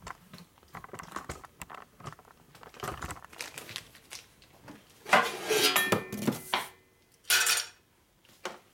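Steel motorcycle engine lifters clinking and clattering as they are handled and set down on a metal drill press table. Small clicks at first, then a longer clatter about five seconds in and a short one a couple of seconds later.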